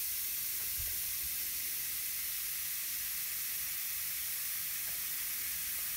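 The baking-soda coating of an L.O.L. Pearl Surprise seashell fizzing as it dissolves in a pot of water: a steady, even hiss.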